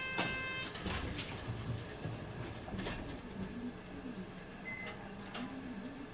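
Inside a city bus cabin: a short electronic tone sounds at the start, then the bus runs with a steady background rumble and a few sharp clicks and knocks from the cabin.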